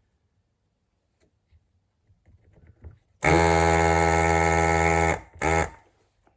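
Electric desoldering station's vacuum pump buzzing as it sucks molten solder from a diode's pins. It runs for about two seconds and then gives a second short burst.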